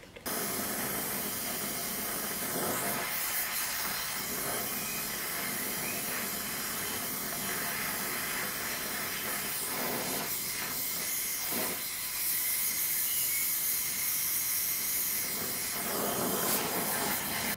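Hand-held gas torch flame hissing steadily while heating a small habaki collar for silver soldering. The hiss starts abruptly just after the start and grows a little louder about two-thirds of the way through.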